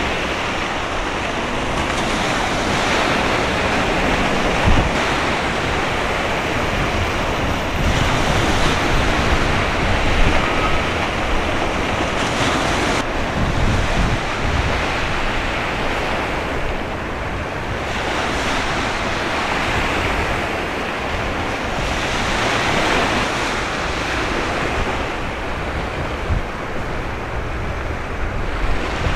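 Steady rush of wind and choppy sea, swelling and easing every few seconds, with wind rumbling on the microphone.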